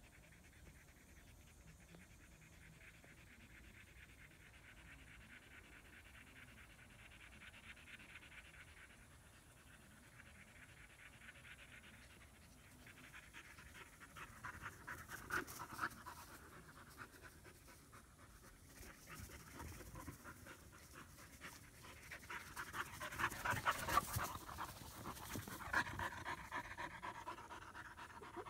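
German Shepherd puppies panting, out of breath from play. It is faint and steady at first, then louder and more ragged from about halfway, with scuffling as the two puppies wrestle near the end.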